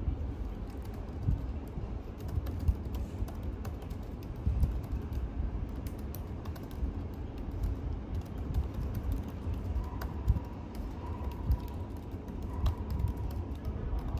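Fingers typing on a laptop keyboard: quick, irregular key clicks over a low steady rumble.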